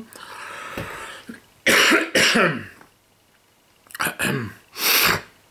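A man coughing and clearing his throat in a few short, harsh bursts, the loudest about two seconds in and again near the end.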